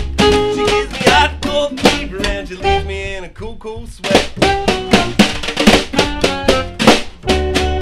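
A small swing band playing live: saxophone, upright bass, ukulele and a snare drum keeping a steady beat.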